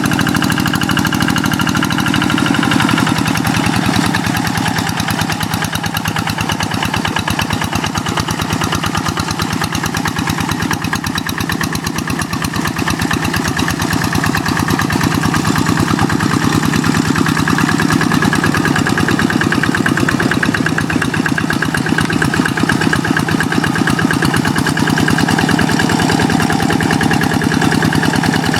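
Kubota single-cylinder diesel engine of a hand tractor running steadily, with a rapid, even knocking beat. Its pitch settles slightly lower about two to three seconds in.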